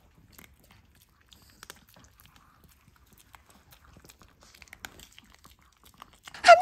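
Long-haired Chihuahua chewing a treat: faint, irregular small crunches and clicks of its teeth.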